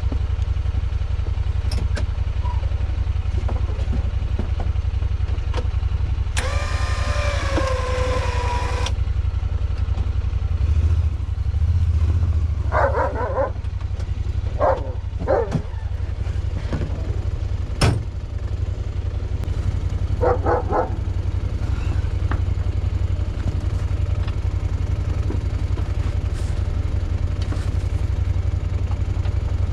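Truck engine idling steadily, with a few brief whines and yelps over it and one sharp knock about eighteen seconds in.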